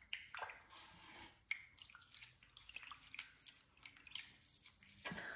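Faint, scattered drips and small wet squishes of water and wet clay being handled, with one sharp click about a second and a half in.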